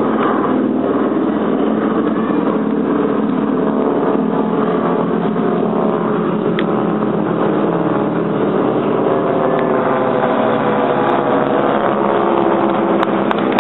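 Steady drone of piston engines and propellers from two single-engine propeller warplanes flying overhead.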